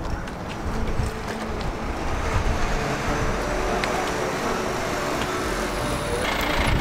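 A car driving over a liftable canal bridge, the bridge deck rumbling and vibrating under it. The rumble builds over the first couple of seconds and then holds steady.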